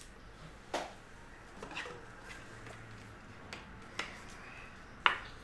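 A handful of light clicks and taps, with faint rustling, from a trading card and its clear plastic holder being handled; the sharpest clicks come just under a second in, about four seconds in and near the end.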